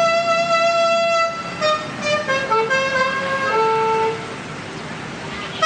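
Alto saxophone playing a solo melodic line of held notes for a sound check. It opens with a long note of about a second and a half, moves through several shorter notes, and stops about four seconds in.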